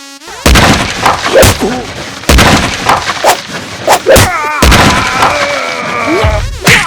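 Action-fight impact sound effects: a rapid run of about six loud hits and crashes, followed by a long wavering cry.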